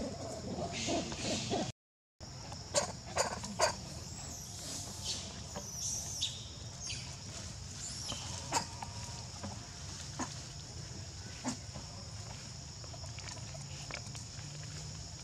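A long-tailed macaque moving through leafy undergrowth: scattered rustles and sharp snaps of leaves and twigs over a steady high-pitched insect drone. A short monkey call sounds at the very start, then the sound drops out for a moment.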